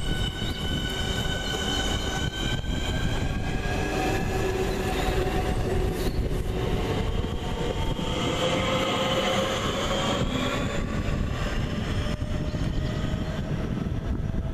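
Class 465 Networker third-rail electric multiple unit moving along the platform and away, with the whine of its traction motors in several tones that glide in pitch over the steady rumble of its wheels on the rails. One sharp click sounds about six seconds in.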